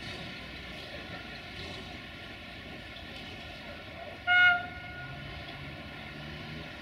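A train horn gives one short toot about four seconds in, over the steady rumble of an idling diesel train.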